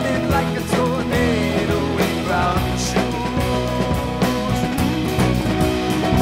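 Rock band playing live with a psychedelic feel: drums, electric and acoustic guitars and keyboard, with a man singing lead over them.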